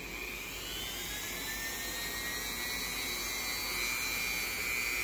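Handheld rotary tool with a small grinding bit running free at high speed: a steady high-pitched whine that creeps slightly up in pitch as it spins up, before it is put to the stuck ring.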